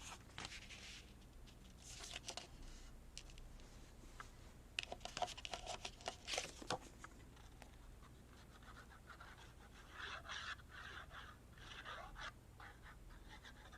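Faint rustling of paper and light scrapes and knocks of craft supplies being shifted about on a cluttered table, coming in a few short spells: someone rummaging for a corner rounder.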